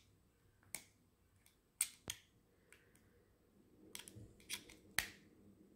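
Plastic body of a Remington beard trimmer being handled: about six scattered sharp clicks and taps, the loudest about two seconds in and about five seconds in. The trimmer's motor is not running.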